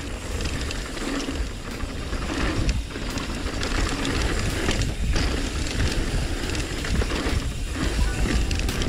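Trek Remedy 9.7 full-suspension mountain bike riding down a dirt trail: tyres on the ground, with the bike rattling and clicking over the bumps. Wind buffets the camera's microphone as a steady low rumble.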